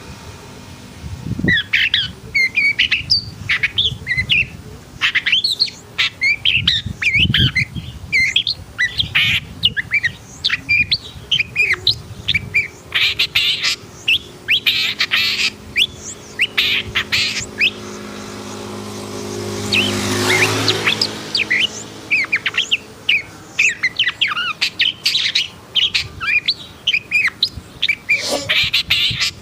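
Long-tailed shrike (pentet) singing in an agitated, excited state: rapid bursts of sharp chirps and squawks with short pauses between phrases. An engine passes, loudest about twenty seconds in.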